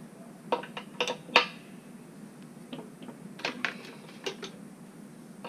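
Metal tools clinking and clanking as they are handled and sorted: scattered sharp clicks, a cluster in the first second and a half and a few more after about three and a half seconds.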